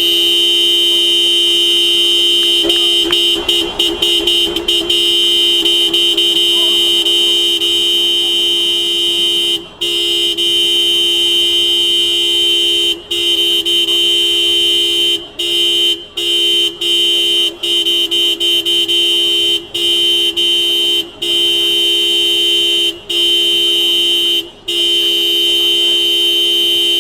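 Car horn held down almost without let-up, a loud steady two-note blare. From about ten seconds in it is broken by a string of very short gaps, each only a split second, as the horn is released and pressed again.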